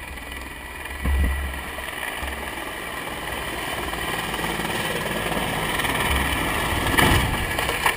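Mil Mi-24 helicopter flying in low, its rotor and turboshaft engines growing steadily louder. About seven seconds in there is a loud crash as the helicopter hits the ground.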